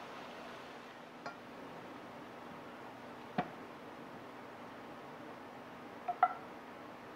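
A few sharp clinks of a metal utensil against a skillet and plate as sautéed meat and mushrooms are scraped out of the pan onto a plate, over a steady low hiss. The loudest, a quick pair about six seconds in, rings briefly.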